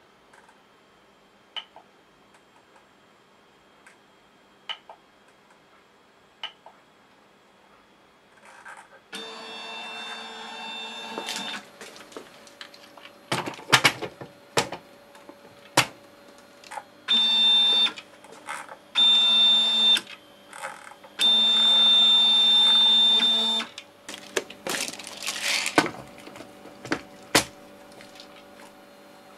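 Stepper motor driving a home-built 3D printer's Y-axis table in short runs, each a steady whine of one to two seconds, starting about nine seconds in after a near-quiet stretch with a few faint ticks. Sharp knocks and a rattle come as plastic boxes of screws are set on the bed as a load.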